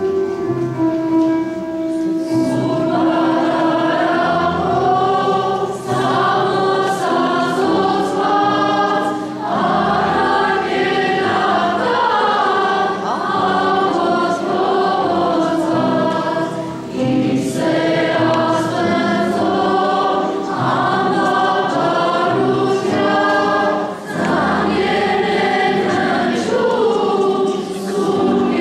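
Children's choir singing with an instrumental accompaniment. The accompaniment plays alone at first, and the voices come in about two seconds in.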